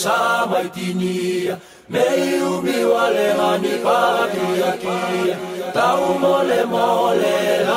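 A group of voices chanting in harmony with no drums or beat, breaking off briefly about two seconds in before carrying on.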